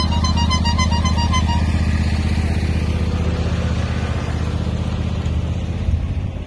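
Small engine of a John Deere riding lawn tractor running steadily as it passes close by, fading away about five seconds in. In the first second and a half, a quick run of short high notes, like a little tune.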